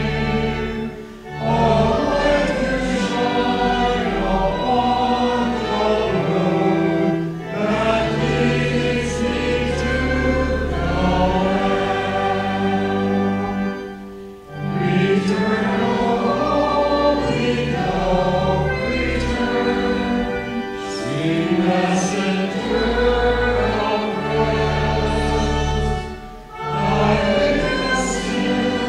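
Congregation singing a hymn with accompaniment, the voices pausing briefly between lines.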